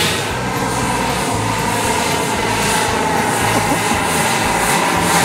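Turbine-powered radio-controlled scale Eurocopter EC135 helicopter flying, with a steady high turbine whine over the thrum of the rotor.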